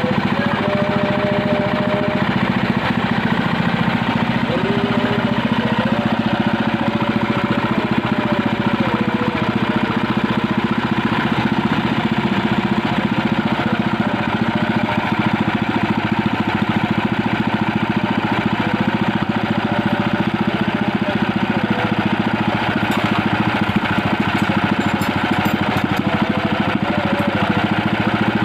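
A small engine idling steadily at an even speed.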